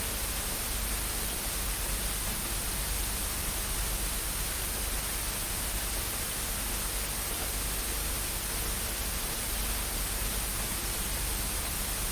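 Steady static hiss, even and unchanging, with a low hum underneath.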